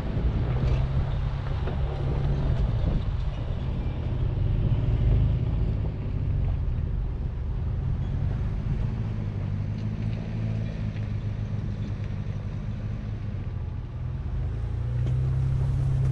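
2019 Chevrolet Colorado ZR2 pickup driving up a dirt trail: a steady low engine rumble with tyre noise over dirt and rock and scattered small ticks.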